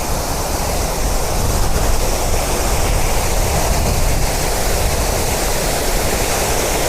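City fountain's water jets splashing steadily into the basin: a constant rushing hiss.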